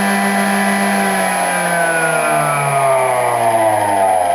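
Induction motor powered by a TECO variable frequency drive, its electric whine holding steady for about a second and then gliding down in pitch as the drive ramps it down slowly.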